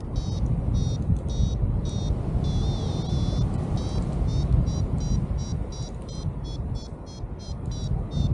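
A paraglider's variometer beeping in short high-pitched pulses, one longer wavering tone about three seconds in, the beeps coming faster in the second half: the vario's climb signal as the glider rises in lift. Behind it, steady rushing of wind on the microphone.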